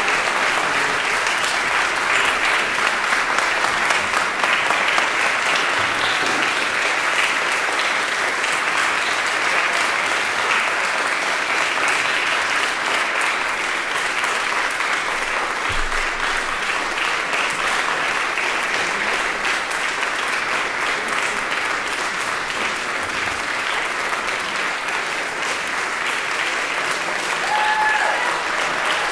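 Concert audience applauding steadily: a full house clapping without a break.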